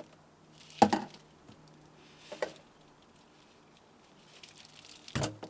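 Handling noises from a hand-built vent adapter being worked on: a few separate knocks, the loudest about a second in, another near the middle and one near the end, over a faint steady hum.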